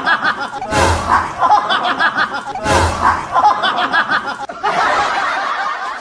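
People laughing: a short canned laugh that repeats about every two seconds. About four and a half seconds in it gives way to a different, duller stretch of laughter.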